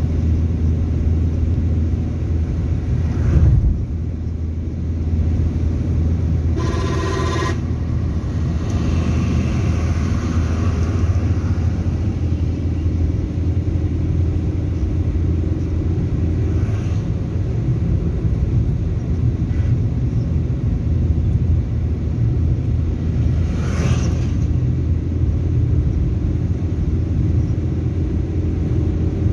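Steady engine and road rumble inside a Changan car's cabin while driving. About seven seconds in, a horn sounds once for about a second, and there are two brief knocks, one early and one later.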